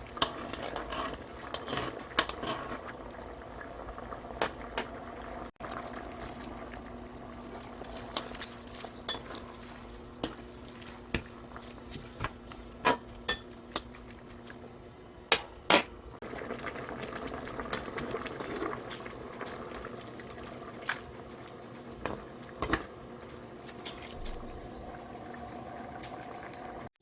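Water boiling in a pot, with sharp clinks and taps of utensils against metal cookware scattered throughout.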